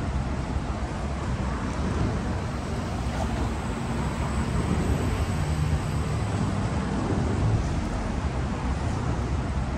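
Downtown city street traffic: a steady low rumble of passing cars and other vehicles, swelling slightly now and then.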